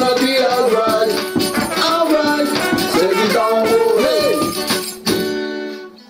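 Instrumental ending of a reggae song: a melody over quick ticking percussion, closing on a held chord that fades out near the end.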